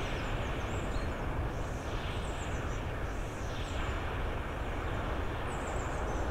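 Forest ambience: a steady, wind-like rushing noise, with faint high chirps that sound like distant birds now and then.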